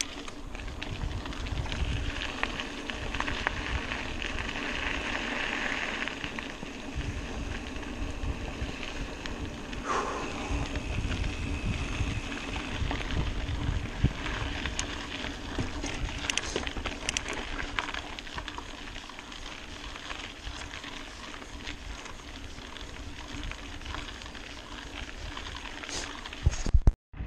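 Mountain bike ridden along a singletrack trail: wind buffets the camera microphone in low rumbling gusts over the hiss of tyres on dirt, with scattered clicks and knocks from the bike. A brief louder burst near the end, then the sound cuts off suddenly.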